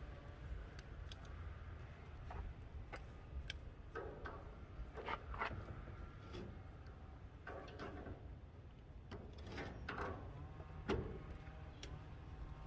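Scattered light metallic clicks and short ringing clinks, more frequent in the middle of the stretch, over a steady low hum.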